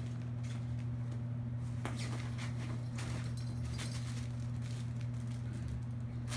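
A steady low hum with scattered light taps and clicks over it.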